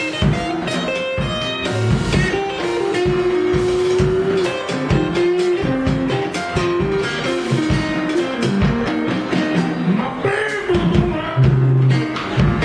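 Live West Side Chicago blues band playing: electric guitar lead lines with bent notes over drum kit and electric piano.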